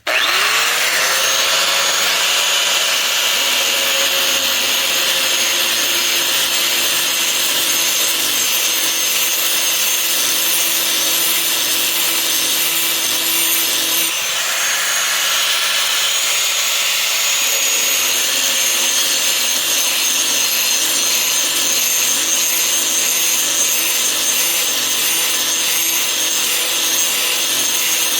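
Handheld grinder spinning up and then grinding steadily along the top edge of a steel lawn mower blade to sharpen it.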